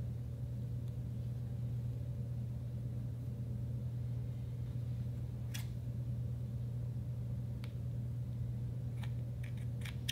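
A steady low electrical-sounding hum, with a few faint clicks from handling a lipstick tube and scissors. Near the end comes a quick cluster of clicks as scissor blades cut into the lipstick.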